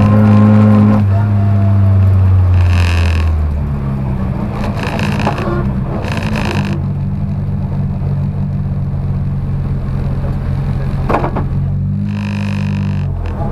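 In-cabin sound of a Lada 2107 rally car's 1.6-litre Béreš-built engine under way. The engine is loud at high revs, its note changing about a second in, then runs steadily at lower revs, and the revs drop near the end.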